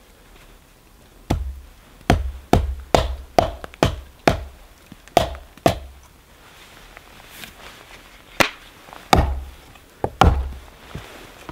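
Axe strikes into a cedar board, splitting off its damp outer edge: about nine quick, sharp chops in the first half, then three slower, heavier ones.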